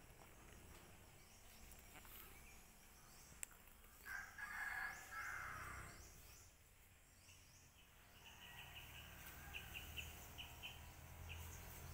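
A rooster crows once, faintly, about four seconds in. Quick high bird chirps, several a second, follow in the last few seconds.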